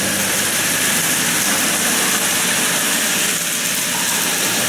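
Steady rush and splash of water pouring into a concrete water cistern as it refills.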